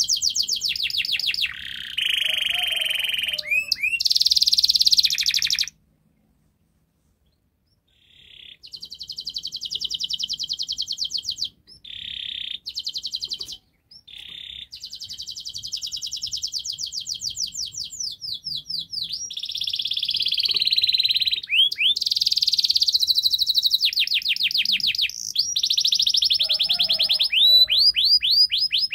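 Domestic canary singing a long song of fast, high trills and rolls, one rapid repeated phrase running into the next, with a break of about two seconds near the six-second mark.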